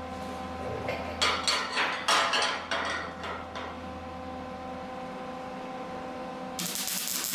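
Arc welding on a steel frame patch: a run of sharp crackling, clattering bursts over about two seconds over a steady hum, then a steady hiss that starts suddenly near the end as a continuous weld begins.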